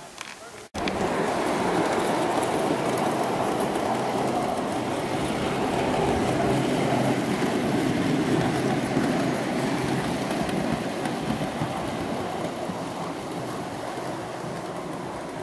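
Gauge 3 model train of a GWR pannier tank and coaches running along garden-railway track, a steady rumble of wheels on the rails. It starts suddenly about a second in and slowly fades as the train draws away.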